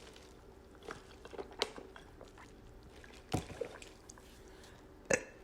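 Wet mouth clicks and smacks close to the microphone: a few small ones, then two louder ones about three and a half and five seconds in.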